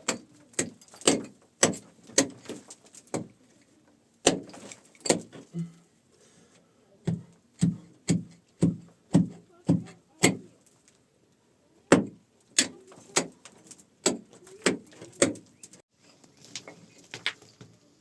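Repeated strikes of a hand tool, about two a second in runs broken by short pauses, some landing with a dull thud.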